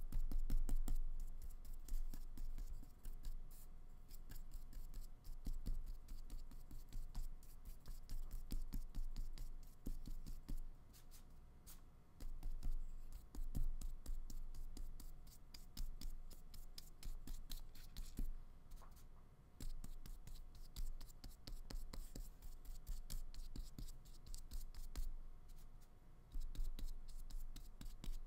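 A flat paintbrush dabbing and stroking acrylic paint on paper and on a palette, a run of irregular scratchy brushing sounds and small taps.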